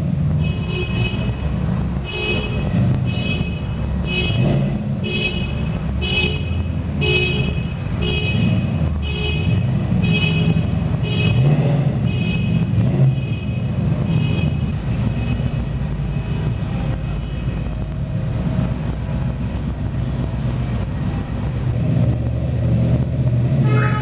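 A vehicle horn honking over and over in short toots, about two a second, the rapid pattern of a car alarm going off; the honks fade out a little past halfway. A steady low rumble runs underneath.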